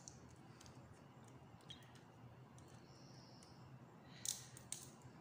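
Faint clicks and light taps of clear plastic drinking straws being handled and fitted together on a card, with a sharper cluster of clicks a little after four seconds in.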